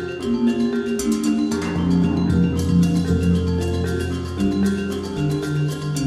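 Background music: held melodic notes over a steady, light ticking beat.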